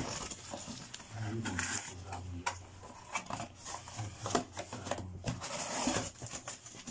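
Corrugated cardboard box being pulled and torn open by hand: flaps rustling and scraping, with scattered knocks and crackles.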